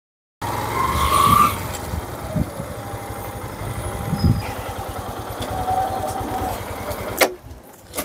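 After a brief silence, a Yamaha motorcycle engine runs with a low, rapid pulsing as the bike rides up and comes to a stop. About seven seconds in, the engine sound ends with a sharp click and a few lighter clicks follow.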